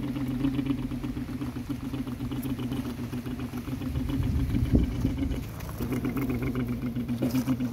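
Heavy diesel engine of a dump truck or excavator running steadily, a low hum with a fast pulse, easing briefly about five and a half seconds in.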